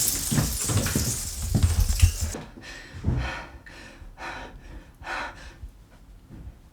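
Rustling and handling noise with low thumps that cuts off sharply after about two seconds, then a person breathing hard in a run of short, separate breaths.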